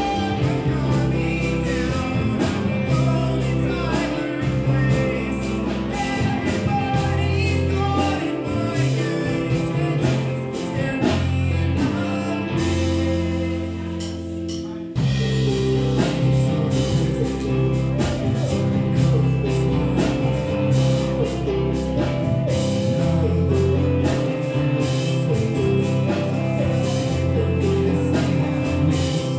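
Live emo-punk rock band playing: electric guitar, bass guitar and drum kit with a singer. About halfway through, the band drops to a held chord and cymbal wash for a couple of seconds, then the full band comes crashing back in.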